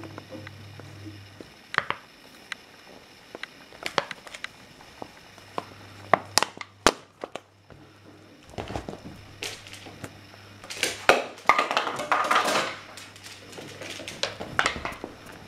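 An empty plastic drink bottle being chewed and handled by a small dog: scattered cracks and clicks of the thin plastic, with a longer stretch of crinkling about eleven to thirteen seconds in.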